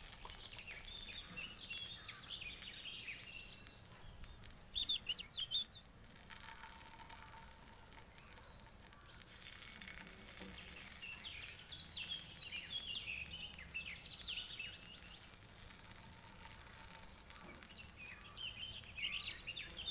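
Birds chirping and singing in short, repeated whistled phrases, loudest about four to five seconds in, over a faint sizzle of batter frying in hot oil in a small cast-iron paniyaram pan.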